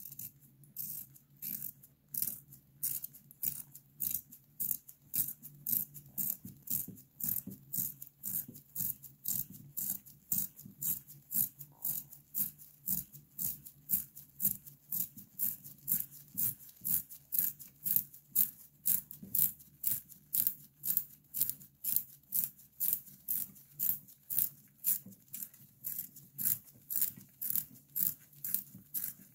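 A restored 1930 Coca-Cola hand-held pencil sharpener's blade shaving a wooden pencil as it is twisted round: a dry scrape about twice a second, in an even rhythm, peeling off long curled shavings.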